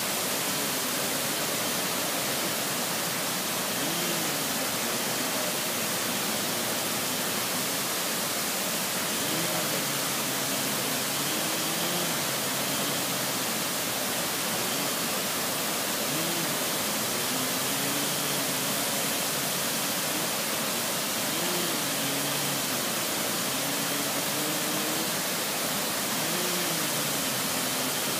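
Waterfall roaring: a loud, steady rush of falling water.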